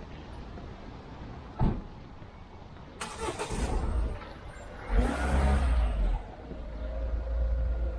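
A motor vehicle's engine running close by, rising in a loud surge about five seconds in, after a single sharp knock about a second and a half in.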